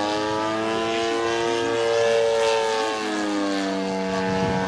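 Model airplane's string-trimmer engine and propeller running at high speed in flight, a steady buzz whose pitch rises a little and then drops about two to three seconds in.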